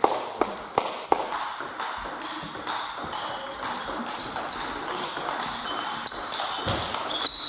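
Table tennis rally: the ball clicking sharply on the table and off the bats, the loudest hits coming in quick succession in the first second or so, with short high squeaks scattered throughout.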